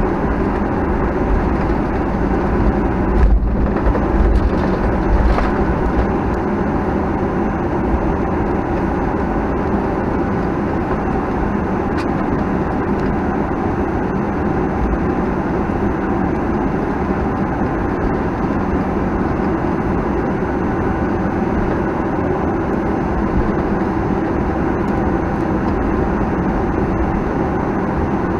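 Cabin noise of a Boeing 737-900ER's CFM56-7B engines running at high power on takeoff, a steady roar from the wing. A low rumble, typical of the wheels on the runway, dies away about five seconds in, consistent with liftoff.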